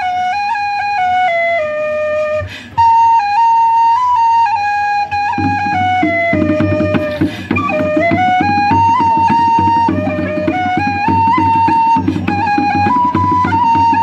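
Traditional folk tune played live on a flute-like wind instrument, a single melody stepping from note to note with a brief gap a little over two seconds in. About five seconds in, a hand drum joins with a fast, steady beat under the melody.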